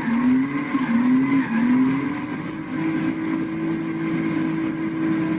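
Race car engine heard from inside the cabin, its pitch rising and dropping three times in quick succession, then holding a steady high note.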